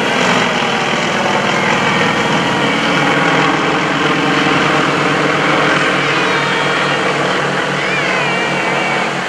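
Radial engines of two aerobatic trainers, Yak-52 and Nanchang CJ-6A types, droning loudly and steadily as the pair flies overhead in formation.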